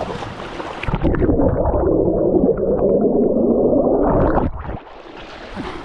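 Water churning and gurgling, heard muffled and loud from a camera plunged underwater, from about a second in until about four and a half seconds; before and after, the open-air rush of the waterfall.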